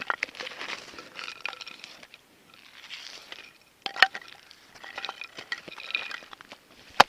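Irregular crunching and crackling of snow and ice with many small clicks, and sharp knocks about four seconds in and near the end.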